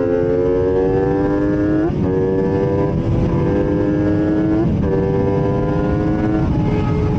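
MV Agusta F3's inline-three engine accelerating hard, its pitch climbing steadily and dropping at three quick upshifts. Heavy wind rush on the microphone sits under it.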